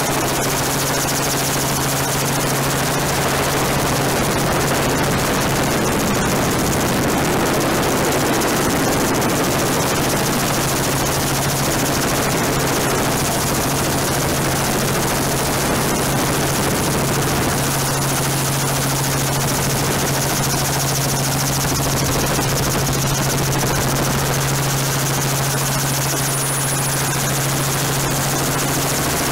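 Helicopter in flight heard from on board: a steady rotor and engine drone with a constant low hum under a rushing noise, unchanging in level.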